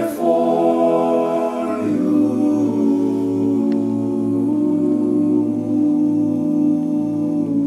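Male a cappella vocal group holding the song's closing chord. The chord shifts about two seconds in, with the bass dropping lower, and is then sustained.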